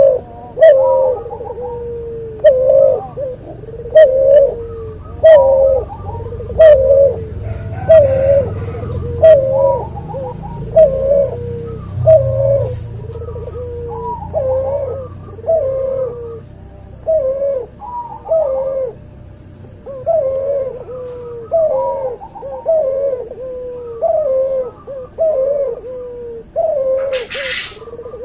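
Cuhu dove, a hybrid of a white albino puter and a puter pelung, cooing over and over: short dipping coo phrases about once a second. A brief rustle-like noise comes near the end.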